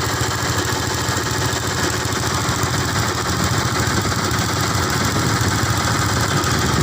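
Motor engine running steadily at an even speed, with a constant low rumble and a hiss over it.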